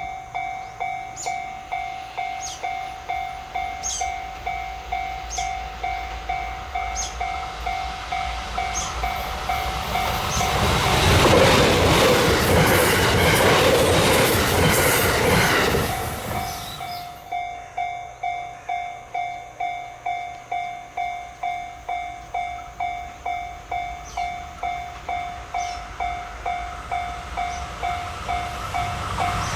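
Japanese level-crossing warning bell ringing steadily, about two strokes a second. About ten seconds in, a train runs through the crossing: a loud rush and rumble of wheels on rail for about five seconds. After the train has passed, the bell rings on.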